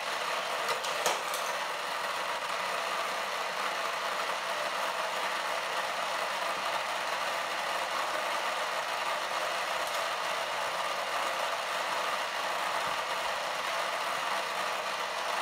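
A modified Hot Wheels booster's small electric motor and spinning drive wheels whirring steadily, run at 4.5 volts from an adapter instead of its two D batteries. A couple of sharp clicks come about a second in.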